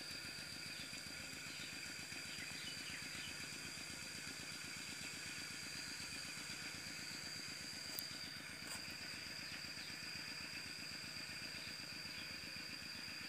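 A small engine running steadily at idle, its even firing pulse going throughout, with a steady high-pitched whine alongside and a single faint click about eight seconds in.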